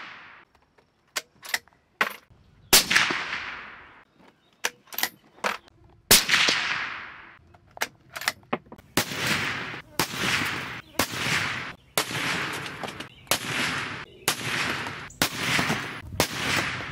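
Suppressed .308 Winchester bolt-action rifle (Ruger American with a SilencerCo Hybrid 46 suppressor) firing. Three shots come a few seconds apart, each with a long echoing tail, and small sharp clicks between them as the bolt is worked. From about halfway through comes a fast run of about ten more shot reports, each under a second apart.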